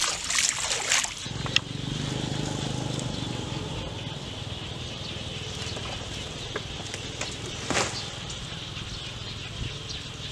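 Bare feet splashing in shallow floodwater at the start. Then dry palm fronds swish and crackle as they are swung and dragged over wet ground, with a sharp crack about eight seconds in, over a steady low hum.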